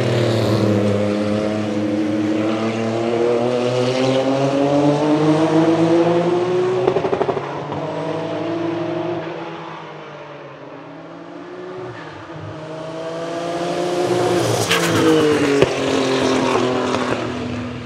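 Porsche 962 IMSA GTP race car's single-turbo flat-six accelerating past, its pitch climbing steadily before dropping away and fading. It then builds again on a second pass, with a couple of sharp exhaust cracks about fifteen seconds in as the revs fall.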